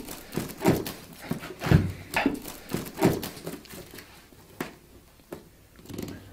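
A large kitchen knife stabs and saws through a packaging box in a run of scraping, knocking strokes, about two a second. After about four seconds they thin out to a few faint clicks.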